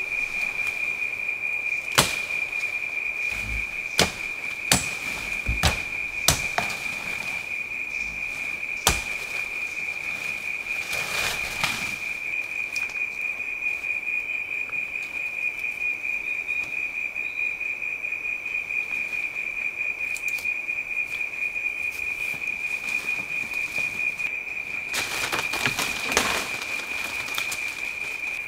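Steady high insect drone at one unchanging pitch in rainforest. It is broken by about six sharp knocks or snaps in the first nine seconds and by two bursts of rustling brush, one near the middle and one near the end.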